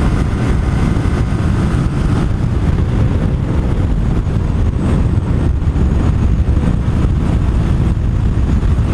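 Steady rush of wind over the rider's microphone at highway speed, with a Yamaha FZ-07's parallel-twin engine running underneath.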